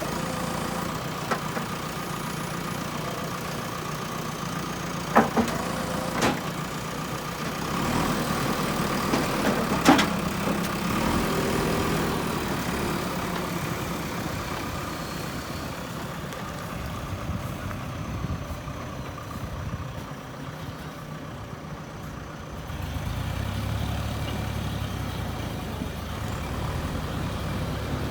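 Diesel engine of a backhoe loader running steadily, swelling for a few seconds twice, with a few sharp knocks about five, six and ten seconds in.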